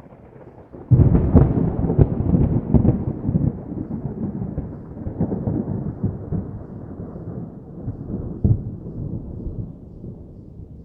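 Distant thunder: a rolling rumble that breaks about a second in with a few crackling peaks, then slowly fades away.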